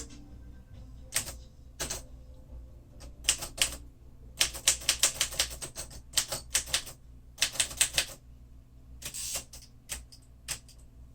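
1948 Royal Quiet Deluxe manual typewriter clicking: a few single sharp clicks, then quick irregular runs of clicks in the middle, and a longer rattling burst near the end.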